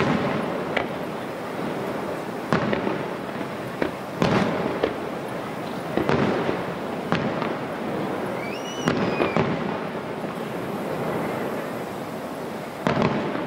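Aerial firework shells bursting: about a dozen sharp booms at irregular intervals, each trailing off in an echoing rumble.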